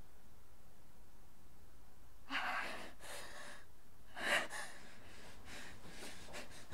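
A woman's sharp breaths: a gasp about two and a half seconds in, a louder gasp a little after four seconds, then quicker, fainter breathing.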